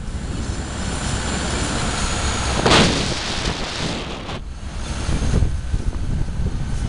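Wind buffeting the microphone of a camera held outside a moving car, over low road rumble, with a louder gust about two and a half seconds in.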